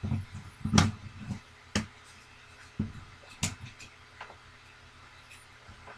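Small plastic Transformers Bumblebee toy in Beetle car mode being handled, giving a handful of sharp clicks and knocks against the paper-covered desk over the first four seconds.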